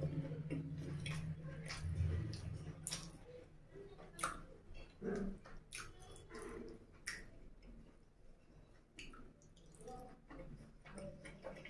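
Close-miked wet chewing and lip smacks of a person eating egg curry and puri by hand, with scattered sharp clicks and squishes. A low hum is heard during the first two seconds.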